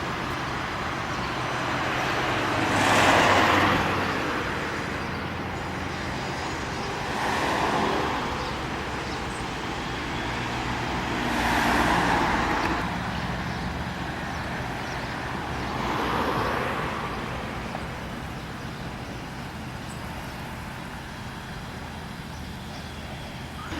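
Road traffic: a steady low engine hum, with four vehicles passing one after another, each swelling up and fading away over a couple of seconds.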